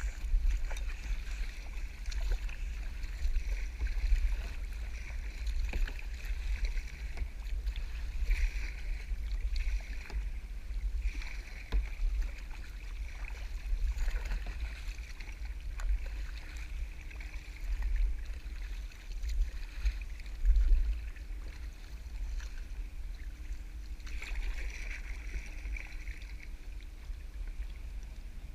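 Water splashing and lapping around a sea kayak as it is paddled, with scattered small splashes, over a constant low rumble.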